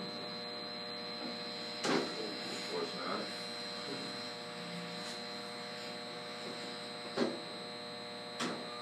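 Steady electrical hum from the switchgear and equipment in an electrical room, broken by a few sharp clicks or knocks, the clearest about two seconds in and about seven seconds in.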